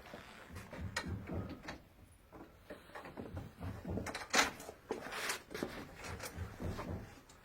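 Irregular knocks and clicks of bed-frame parts and bolts being handled during assembly, the sharpest knock about four and a half seconds in.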